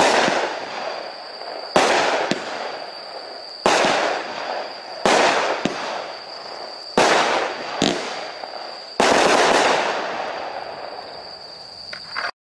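Red Lantern Air Attack 200-gram fireworks cake firing its last shots: six loud aerial bangs, one every one and a half to two seconds, each trailing off in a fading rumble, with a few smaller pops between them. The sound stops abruptly near the end.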